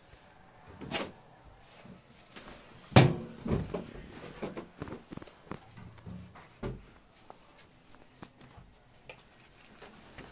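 Scattered knocks and metal clanks from a sheet-metal stove being tended as the fire is stoked through its open door. The loudest knock comes about three seconds in.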